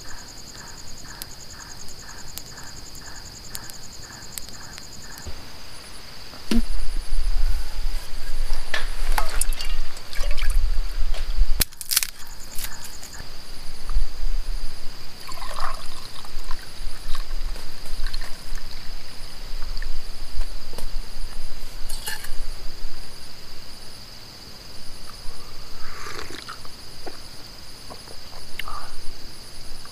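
Night insects such as crickets chirring in a steady high-pitched chorus, with a pulsing call at about two a second over the first five seconds. From about six seconds in, low rumbling and knocks of handling join it, with a sharp click near twelve seconds.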